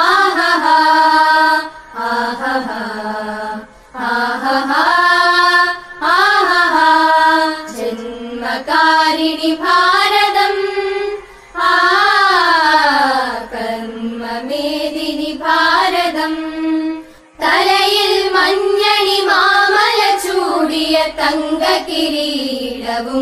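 Singing of a Malayalam patriotic song in a Carnatic-style melody: slow phrases of held notes that glide up and down, with short breaks between phrases.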